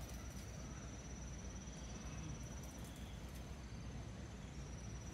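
Insect trilling in one steady high-pitched note, over a low steady rumble.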